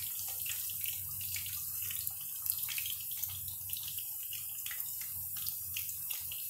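Potato wedges sizzling in hot mustard oil in an aluminium kadhai: a steady frying hiss with many small crackles and pops.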